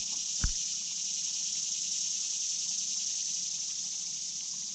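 Creek water running in a steady, even rush. A single soft knock about half a second in.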